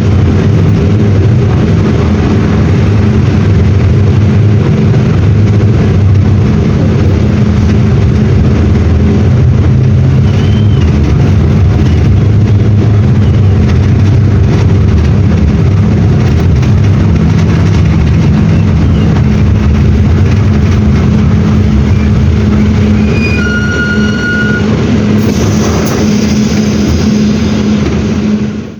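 Mercedes-Benz OM-924 LA four-cylinder inline diesel engine of an OF-1721 BlueTec 6 bus running steadily and loud. A brief high tone sounds near the end.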